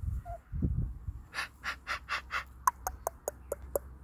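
Pomsky puppy panting in quick, rhythmic huffs, about four to five a second, turning sharper and slightly squeaky about halfway through.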